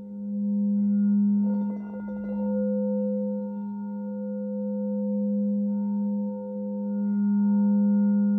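Crystal singing bowl played for deep tones: a steady low hum with ringing overtones above it that swell and ebb as it sings, with a brief rubbing noise about two seconds in.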